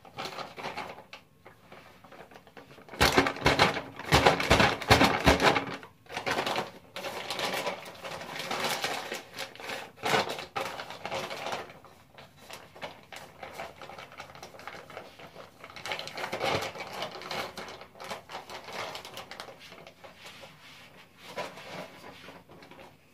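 Rapid clattering and tapping of kitchen utensils and containers being handled, with a loud dense run of taps from about three to six seconds in, then lighter irregular knocks.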